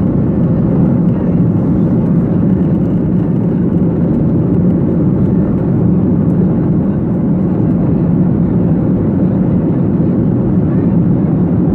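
Steady, loud rumble of an airliner's engines and rushing air, heard inside the passenger cabin.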